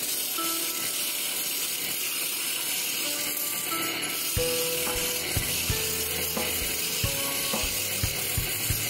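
Wood lathe spinning a wooden spindle while a hand-held chisel cuts into it: a steady hissing scrape of the cut over the running machine, with a series of sharp knocks from about halfway through.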